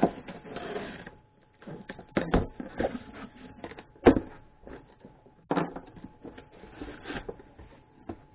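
A cardboard welder box being opened and its packing padding handled: irregular knocks and thuds with rustling between them, the loudest thud about four seconds in.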